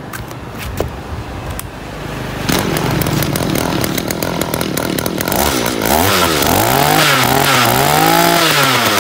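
Echo two-stroke brush cutter engine pull-started, catching about two and a half seconds in. It runs, and from about five and a half seconds on is revved up and down several times.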